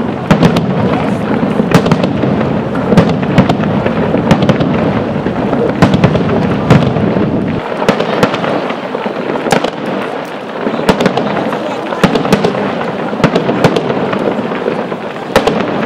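Aerial fireworks shells bursting in a steady barrage of sharp bangs and pops, many overlapping, over a constant noisy wash.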